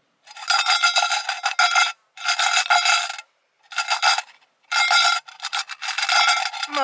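Coins rattling in a tin can as a collection tin is shaken, in four bursts with short pauses between.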